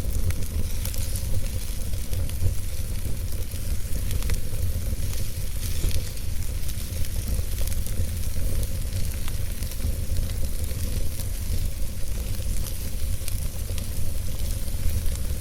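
Campfire burning, with scattered small crackles and pops over a steady hiss and a steady low rumble.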